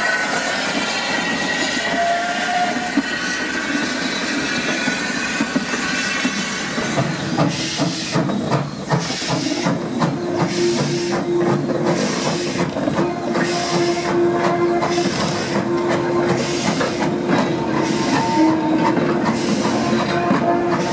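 Steam-hauled train passing, wheels rumbling over the rails with some high squealing at first. From about seven seconds in, a Great Western saddle tank engine working a goods train chuffs past, its exhaust beats coming about one and a half a second over a steady low tone.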